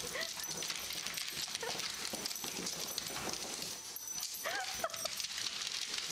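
A dog whimpering in a few short, high whines, with a longer bending whine near the end, over a steady hiss.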